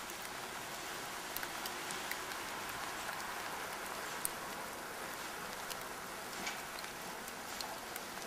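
Steady rain falling, with scattered drops ticking on nearby surfaces.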